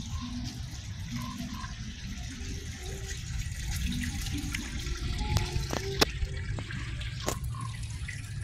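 Steady rushing hiss of grain pouring down into a truck. A few sharp clicks come through in the second half.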